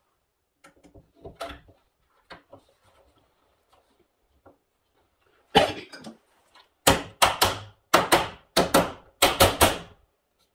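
Knocks on wooden door trim as it is worked into place: a few faint taps at first, one loud knock about halfway through, then a quick run of about nine loud knocks, roughly three a second.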